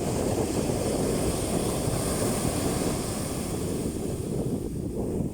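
Ocean surf breaking and washing up a sandy beach, with a constant low rumble and a hiss of foam that swells about two seconds in and fades near the end. Wind buffets the phone's microphone.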